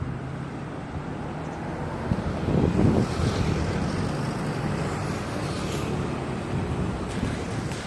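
Vehicle traffic rumbling steadily, with wind buffeting the microphone and a gust about three seconds in.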